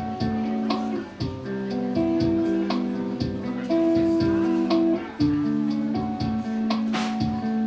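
Solo guitar playing held chords, picked and strummed in a steady rhythm with an attack about every half second.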